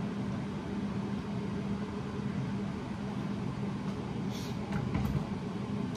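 A steady low hum from a running kitchen appliance, with two brief high crackles about four and five seconds in.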